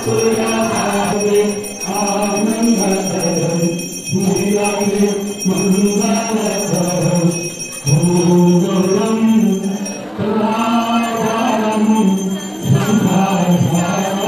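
Hindu aarti hymn to the goddess Durga sung in unison by a group of worshippers, in phrases with short breaks, with bells ringing steadily behind the singing.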